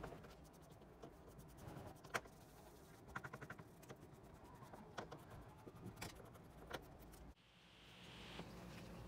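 Faint, scattered light clicks and taps over a low steady hum, with a quick run of ticks about three seconds in. Near the end the background changes abruptly to a slightly louder hiss.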